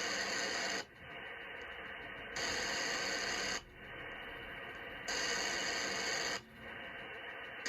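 Radio interference noise from a ham radio receiver on the six-meter band: a louder, brighter hiss about a second and a quarter long comes back roughly every two and a half seconds, with a duller, quieter hiss and faint ticking between. It is man-made noise from an unidentified electrical device.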